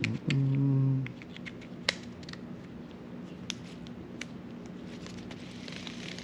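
Scattered small sharp clicks and ticks of a Shimano Chronarch baitcasting reel's parts being handled and fitted back together. A short low voiced hum lasting about a second near the start.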